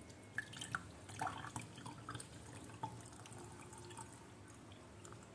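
Faint drips of a herbal remedy liquid falling through a strainer into a container, a handful of separate drops over the first few seconds, then they die away.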